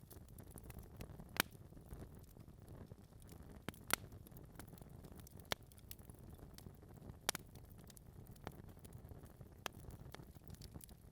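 Wood fire burning in a fireplace: a faint, steady low rumble of flames with irregular sharp crackles and pops from the logs, the loudest at about one and a half, four and seven seconds in.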